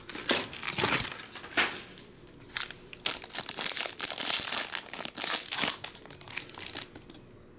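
Foil trading-card pack being torn open and crinkled by hand: a run of sharp foil crackles that thins out near the end.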